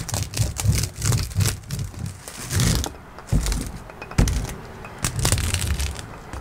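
Dry woven lauhala (bacbac) matting crackling and rustling as it is pressed up against the ceiling, with several sharp snaps from an electric T50 staple gun driving staples through it.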